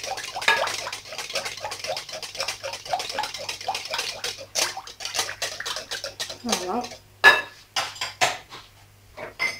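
Metal wire whisk beating a thin liquid mixture of milk, water, oil and egg whites in a glass bowl, the wires clicking against the glass in quick, even strokes. About seven seconds in there is a sharper clack and the whisking stops, leaving only a few light clicks.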